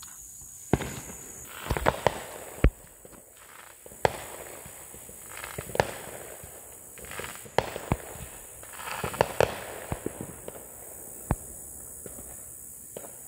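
Fireworks and firecrackers going off: irregular sharp bangs and pops, some near and loud, others further off, with short stretches of hissing crackle in between.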